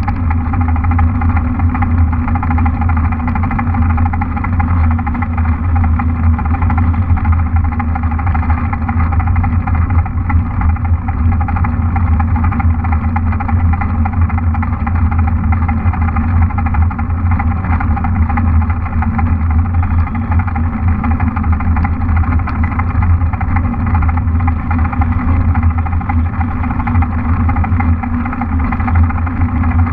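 Steady rumble of a mountain bike riding along an asphalt lane: wind rushing over the action camera's microphone, with the hum of the knobby tyres rolling on the tarmac.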